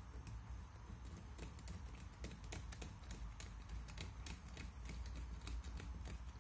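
Faint, irregular small clicks and ticks of a hand screwdriver turning screws that fasten a metal fore-end iron into a wooden shotgun fore end. They come thickest in the middle.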